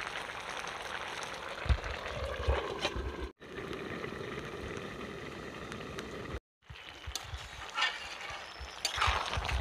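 Bottle gourd and prawn curry simmering in a large aluminium pot over a wood-fired clay stove: a steady bubbling hiss with a few low thumps. The sound drops out briefly twice.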